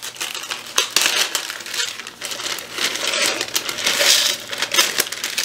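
Plastic zip-top bag crinkling as it is unzipped and handled, with oats being tipped out of it into a plastic shaker bottle; a dense, crackly rustle with scattered small clicks.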